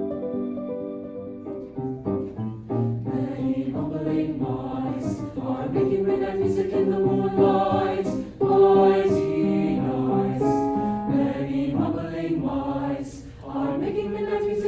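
High school vocal ensemble singing a choral piece in harmony, several voice parts at once, with the sung words' s sounds audible.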